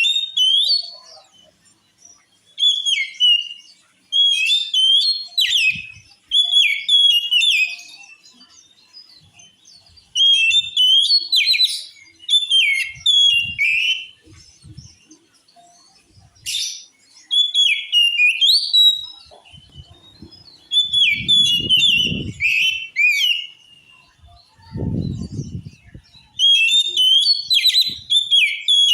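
Oriental magpie-robin singing loud, clear whistled phrases in short bursts of about a second, repeated every two seconds or so. Two low dull thuds come about three-quarters of the way through.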